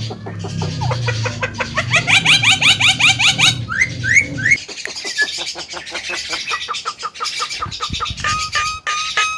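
Javan myna (white-eyed jalak kebo) singing hard: fast chattering runs of rapidly repeated notes, a few rising whistles about four seconds in, and a string of short repeated whistled notes near the end. A low hum sits underneath and stops about halfway through.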